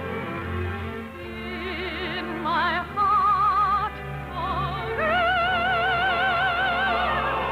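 Operatic singing with orchestra from an operetta broadcast: a high, soprano-range voice holds notes with wide vibrato, rising to a long sustained high note from about five seconds in.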